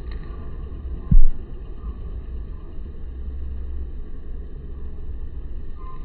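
Steady low outdoor rumble on a smartphone microphone, with one loud, very low thump about a second in.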